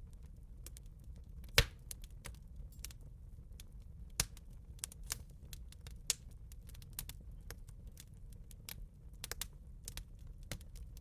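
Wood fire crackling: irregular sharp pops and snaps over a low steady rumble, with one louder pop about one and a half seconds in.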